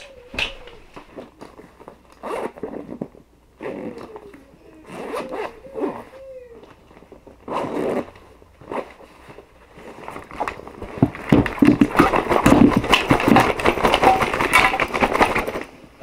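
Zippers of a Red Rock Rover sling pack being pulled open with short rasping strokes, then the pack emptied and shaken so its gear, a steel water bottle among it, spills out in a loud run of clattering and rustling onto a blanket-covered floor near the end.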